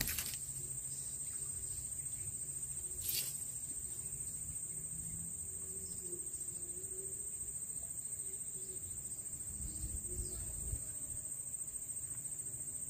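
Steady, unbroken high-pitched drone of insects, crickets or cicadas, over a low rumble, with one brief click about three seconds in.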